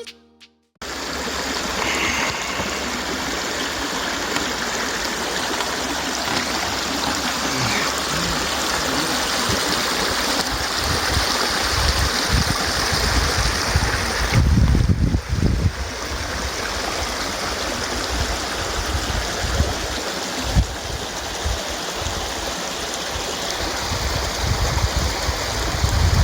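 A stream of water flowing steadily, with a brief low rumble near the middle.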